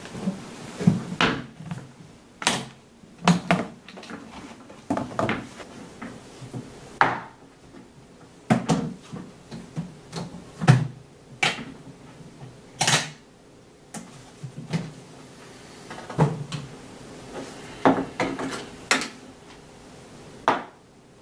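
A string of irregular knocks, clicks and bumps as a briefcase is handled on a table and opened, with a small plastic tub of Flarp noise putty set down and pushed across the tabletop near the end.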